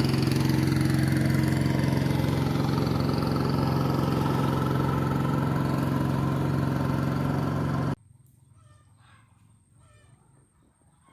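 Boat engine running steadily as a motorised river boat passes, cutting off suddenly about eight seconds in, after which only faint calls remain.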